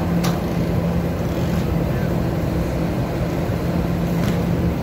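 Steady machinery drone on a ship's deck, a low rumble with a constant hum, with a few faint clicks.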